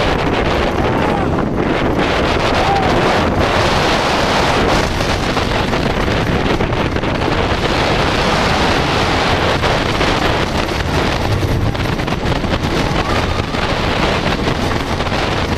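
Loud, steady wind rushing over the microphone, mixed with the rumble of the White Lightning hybrid coaster's train running along its track mid-ride.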